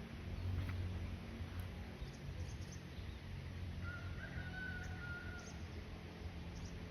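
Steady low background rumble, with a faint single bird call held for about a second and a half, about four seconds in.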